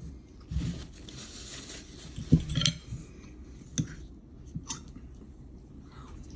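Fork clinking and scraping against a plate while eating, with a handful of separate knocks and clicks; the loudest knock comes about two and a half seconds in.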